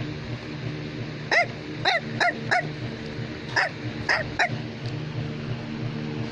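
Bichon Frisé barking: seven short, high yaps in two quick runs, four and then three, over a steady low hum.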